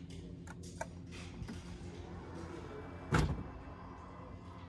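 The powered lower section of a Range Rover's split tailgate closing: a steady electric motor hum, with a loud thunk about three seconds in as it shuts and latches.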